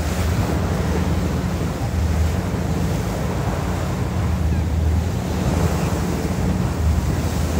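Sea water rushing and churning in the wake of a moving boat, with wind buffeting the microphone as a steady low rumble.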